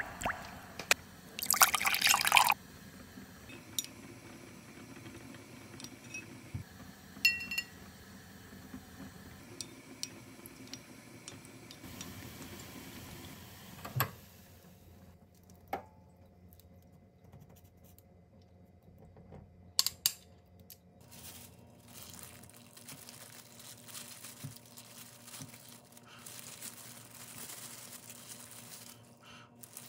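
Kitchen preparation sounds: liquid being poured and dripping among glass and dishware, with a loud clatter about two seconds in, a short ringing clink of glass or ceramic, and a few sharp knocks on the counter.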